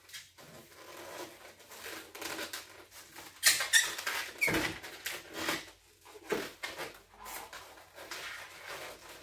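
Latex twisting balloons squeaking and rubbing as they are handled and twisted, with scattered light handling knocks; the loudest noises come about three and a half seconds in.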